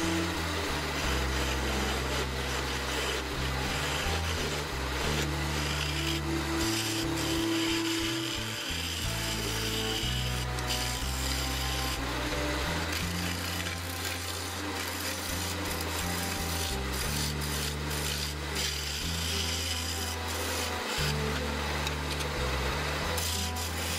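Wood turning on a lathe: a tool cutting or scraping the spinning wooden blank, a steady rasping sound, over background music with a stepping bass line.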